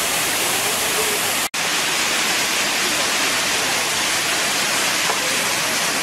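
Waterfall on the San Vicente river: the loud, steady hiss of falling water, which cuts out for an instant about a second and a half in.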